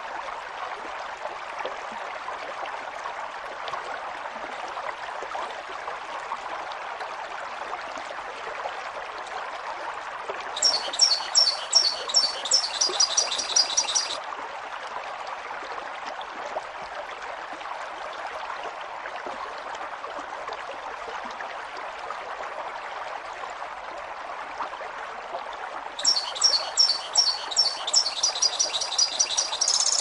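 Two quick runs of high, repeated bird chirps, a few seconds each, over a steady rush of running stream water.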